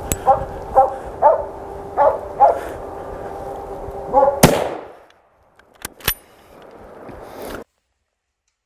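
A hunting dog barking repeatedly at a moose held at bay, then a single loud rifle shot about four and a half seconds in, its echo dying away. Two sharp clicks follow about a second and a half later.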